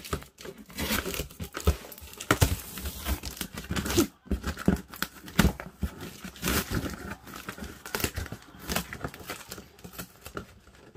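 Brown plastic packing tape being peeled off a cardboard box, in a run of irregular rips and crackles as it pulls away from the cardboard.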